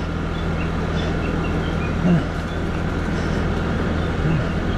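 50cc moped engine running steadily as it rolls down a paved mountain road, with a constant hum and an even rushing noise of wind and road.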